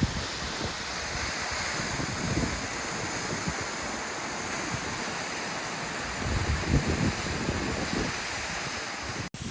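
Steady rushing of an 85 m plunge waterfall, with wind buffeting the microphone in low gusts that grow stronger a few seconds before the end. The sound breaks off for an instant near the end.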